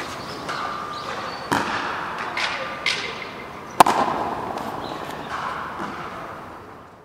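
A few sharp knocks of a frontón ball off racquets and the court's walls, echoing in the walled court, the loudest about four seconds in. The whole sound fades away near the end.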